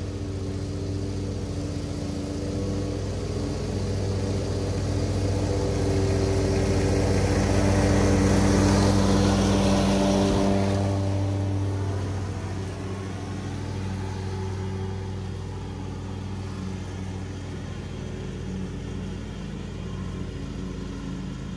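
Ferris commercial lawn mower's engine running steadily as it cuts tall grass, growing louder as it passes close about eight to ten seconds in, then fading as it moves away.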